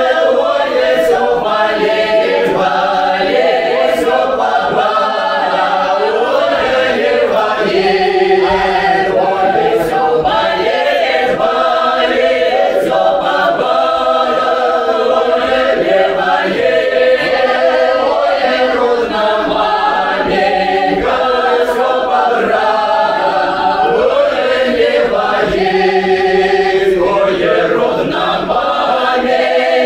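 Mixed men's and women's choir singing a Don Cossack folk song in several-part harmony, voices moving together phrase by phrase.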